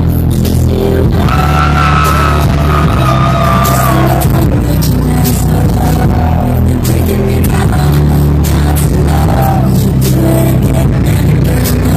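Loud electronic dance music from a DJ set over a club sound system: heavy sustained bass with a higher synth melody held above it.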